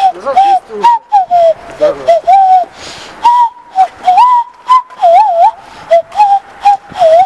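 A person whistling a quick, busy run of short notes that slide up and down in pitch, with a couple of longer wavering notes in the middle.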